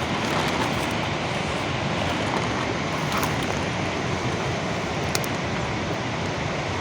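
Heavy rain falling in a steady, even hiss, with a couple of faint clicks partway through.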